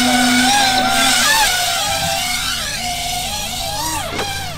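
Electric motor and propeller of a radio-controlled model airplane whining, the pitch rising and falling as the throttle is worked on a landing approach. Near the end the whine drops sharply and cuts off as the motor is throttled down with the plane on the ground.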